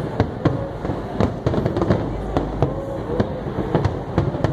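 Fireworks display bursting: a rapid, irregular run of sharp bangs and crackles, several a second, over a continuous low rumble.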